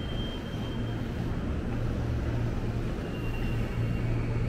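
Train station concourse ambience: a steady low hum and rumble, with two faint thin high tones, one near the start and one about three seconds in.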